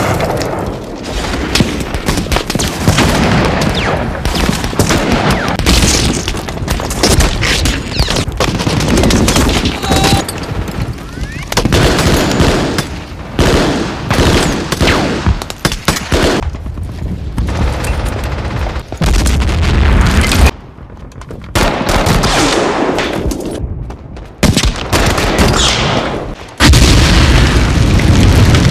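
Film battle sound of a WWII beach assault: dense rifle and machine-gun fire with heavy explosions, one big low boom near the end, and shouting voices.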